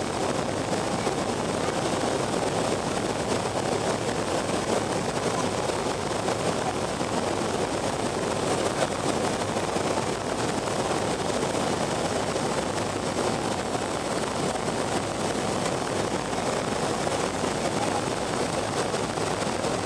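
Steady noise inside the cabin of a BAe Avro RJ85 airliner descending on approach with its flaps extended: its four Honeywell LF507 turbofan engines and the rushing airflow, heard from a window seat beside the engines. The level holds even throughout.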